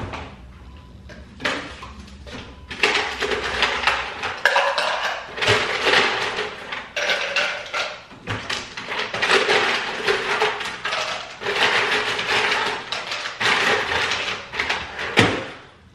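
Ice cubes and kitchenware clinking and clattering in a jug of watermelon water, in repeated spells of a few seconds each with short pauses between.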